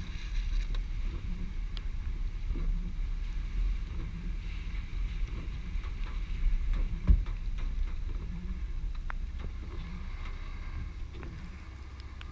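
Vehicle driving slowly on a wet road, a low steady rumble with wind buffeting the exterior camera's microphone. Scattered sharp ticks and one louder thump about seven seconds in.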